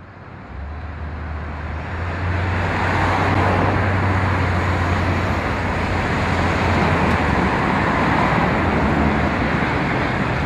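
Road traffic noise: steady noise of passing cars with a low engine hum, fading in over the first two seconds.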